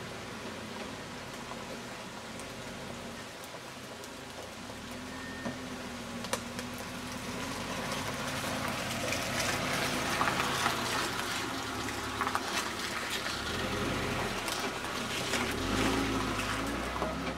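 Suzuki Vitara 4x4 engine running under load while pulling a tree, its revs stepping up and down. A rushing, crackling noise grows louder through the second half.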